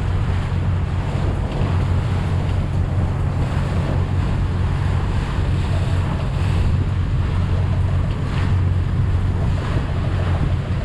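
A yacht under way, its engine droning steadily in a low hum, with wind buffeting the microphone and water rushing past the hull.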